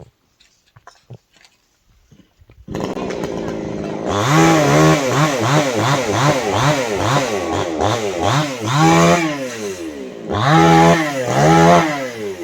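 Chainsaw starting up suddenly a few seconds in, then revved hard, its engine rising and falling in pitch about twice a second before dropping back near the end.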